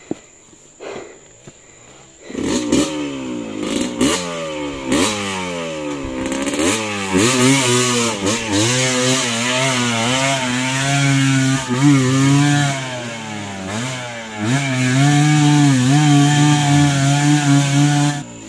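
Motorcycle engine under way: about two seconds in it comes up loud, its pitch rising and falling several times as it is revved and shifted, then settles to a steady pitch, sagging once in the middle before holding steady again until it cuts off.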